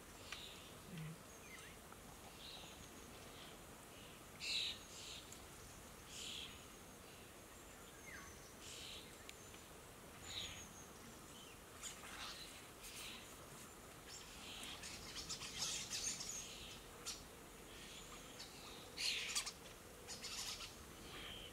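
Starlings, adults and juveniles in a flock, giving scattered short, faint calls and chirps, with louder clusters about four, sixteen and nineteen seconds in.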